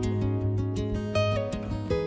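Instrumental background music led by guitar, with plucked and strummed notes.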